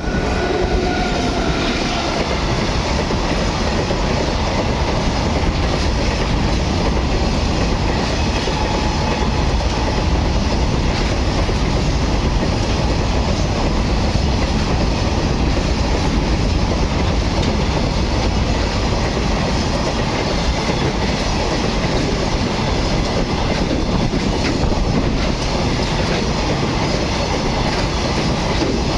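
Bhopal Weekly Express passenger train running past at speed: a loud, steady rumble of the wheels on the rails with repeated clacks. A horn tone fades out in the first two seconds.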